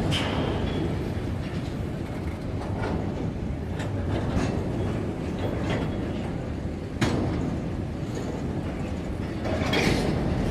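Freight train rolling past with a steady rumble, its wheels clacking over rail joints at irregular intervals, with a sharp clack about seven seconds in.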